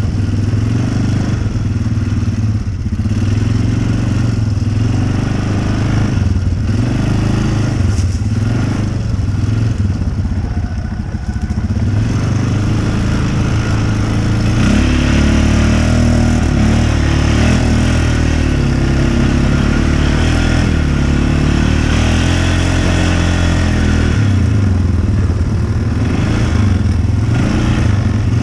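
Off-road vehicle's engine running and revving up and down, its pitch rising and falling; it settles into a steadier, slightly louder run about halfway through.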